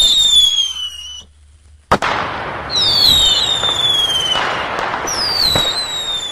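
Whistling fireworks going off: three shrill falling whistles over crackling, with a sharp bang just before the second.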